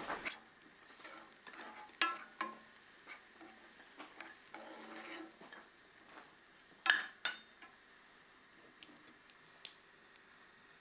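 Onions, peppers and tomatoes frying faintly in a pan, stirred with a utensil, with a few sharp clinks of utensils.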